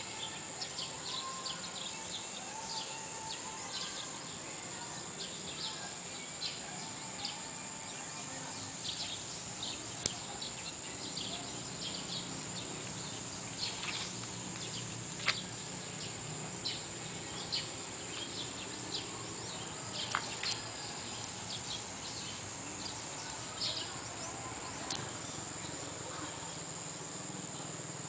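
Outdoor ambience of insects and birds: a steady high-pitched insect drone under many short, scattered bird chirps, with a few sharp clicks.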